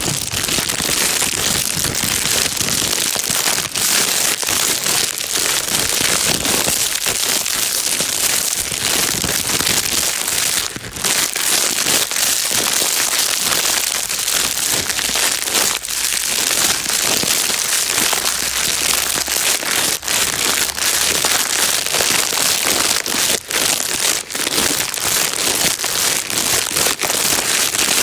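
A plastic bag being crinkled and rustled continuously, a dense, even crackling with no pauses, played as a calming noise for a crying baby.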